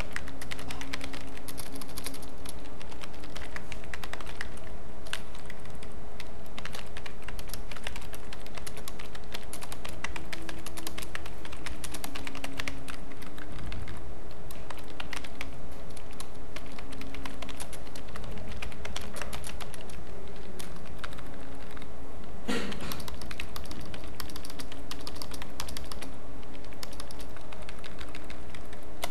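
Computer keyboard typing: quick, irregular keystrokes as text and numbers are entered, over a steady background hum.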